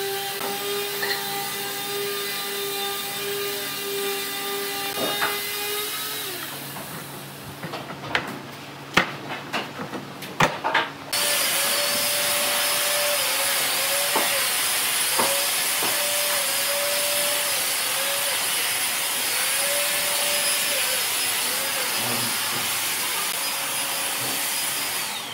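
Woodshop machinery running steadily with a pitched whine for the first several seconds, then a few scattered clicks and knocks, then a louder steady machine noise with a wavering tone from about eleven seconds on.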